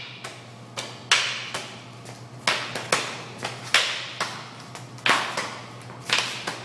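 Eskrima sticks clacking in a Balintawak strike-and-block drill: sharp stick-on-stick hits and slaps against the blocking hand, about one a second, often in quick pairs, each ringing briefly in an echoing hall.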